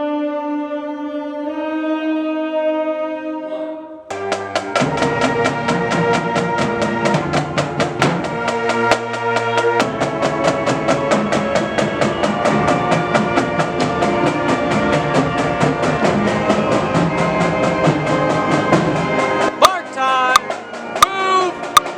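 School marching band rehearsing: a held brass chord, then about four seconds in the full band comes in playing a tune with drums keeping a steady beat. Near the end the playing stops and a few sharp clicks and voices are heard.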